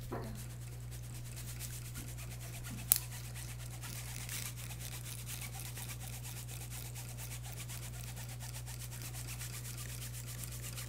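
A Sharpie marker's tip scratching and rubbing on a paper strip as the strip is pulled under it and the LEGO seismograph frame is shaken. One sharp click comes about three seconds in, over a steady low hum.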